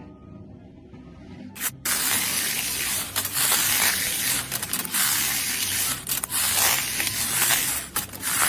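A loud, steady spraying hiss that starts about two seconds in, with a few brief dips, and cuts off suddenly at the end.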